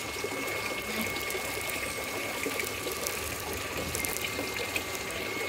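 Water running and splashing steadily into a fish pond, with a faint steady high whine over it.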